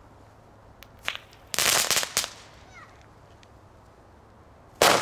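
Category 1 crackle balls going off: a short crackle about a second in, then a dense, rapid crackling lasting under a second, and another loud burst of crackling near the end.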